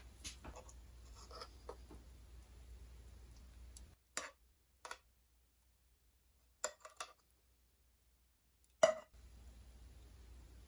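Metal kitchen tongs clicking and knocking against a frying pan while meatballs in tomato sauce are scooped from it onto spaghetti in a glass dish. A handful of short, sharp clicks are heard, the loudest about nine seconds in, over faint background hiss.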